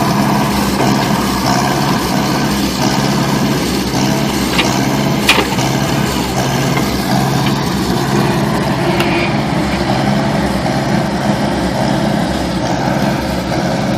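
Tractor engine running steadily while dragging and levelling ground, with a single sharp click about five seconds in.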